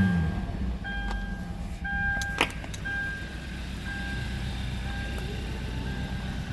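2013 Hyundai ix35's 2.0-litre engine dropping back from a rev and then idling steadily, in an engine test that the seller calls good. A dashboard warning chime beeps about once a second throughout, and there is one sharp click about two and a half seconds in.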